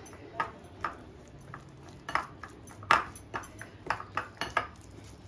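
Metal spoon clinking and scraping against a glass bowl while stirring spices into a thick paste, in irregular clinks about two a second, the loudest about three seconds in.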